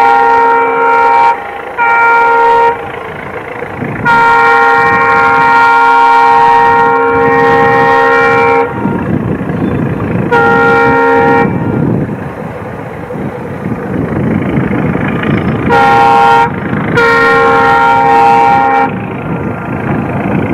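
Indian Railways diesel locomotive sounding its multi-tone horn six times: two short blasts, one long blast of about four and a half seconds, then three shorter ones. A low rumble from the approaching train fills the gaps between the later blasts.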